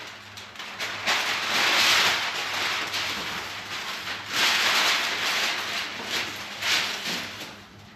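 Brown masking paper rustling and crinkling in repeated swells as a large sheet is unfolded and handled.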